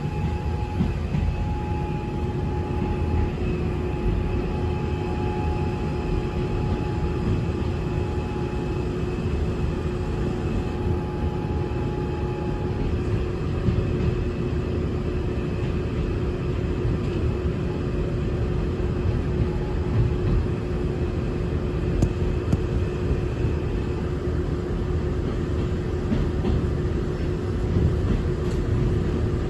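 A Gwangju Metro Line 1 train running at speed, heard from inside the car: a steady low rumble of wheels on rail with a constant hum over it. A higher tone fades out about halfway through.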